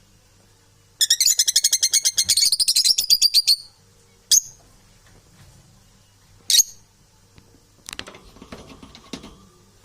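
Parrot calling: a loud, rapid high-pitched chattering trill for about two and a half seconds, then two short sharp squawks a couple of seconds apart. Quieter scratchy rustling and clicks follow near the end.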